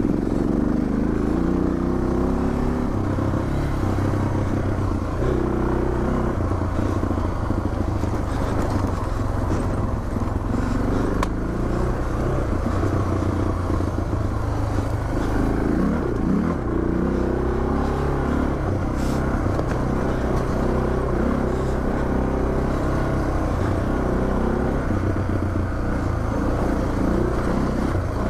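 Suzuki DR650's single-cylinder four-stroke engine running as the bike is ridden on a rocky trail, its pitch rising and falling with the throttle.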